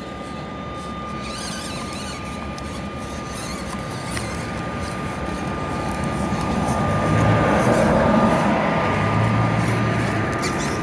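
Axial SCX24 micro RC crawlers' small electric motors and gear drives whirring as they crawl, with a steady high whine throughout. The drive noise grows louder from about six seconds in, then eases near the end.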